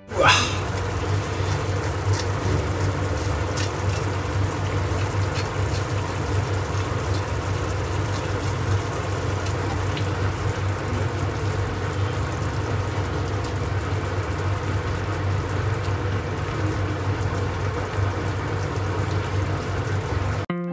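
Water running steadily, as from a tap, with a low hum beneath it; it starts and cuts off suddenly.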